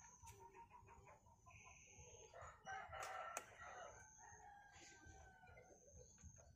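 Faint chickens in the background, a rooster crowing and hens clucking, with two sharp snips of small pruning scissors about three seconds in.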